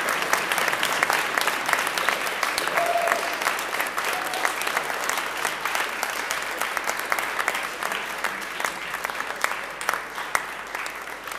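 Audience applauding: dense clapping that slowly thins and fades, with a couple of short calls from the crowd a few seconds in.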